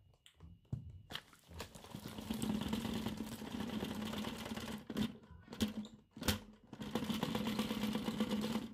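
Ball-type upright vacuum cleaner running in two spells of a few seconds each, with three sharp knocks between them.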